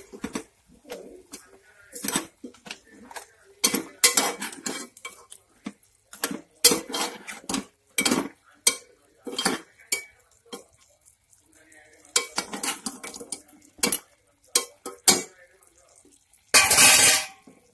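A metal spoon scraping and clinking against a metal cooking pot in irregular strokes as sliced onions are stirred into chunks of pork curry. Near the end comes one longer, louder metallic clatter as the metal lid goes onto the pot.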